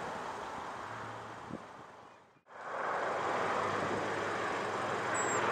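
Dash 8 Q400 turboprop on approach: a steady low propeller drone under a broad rush of engine and air noise. The sound fades out about halfway through, then returns louder as the airliner draws nearer.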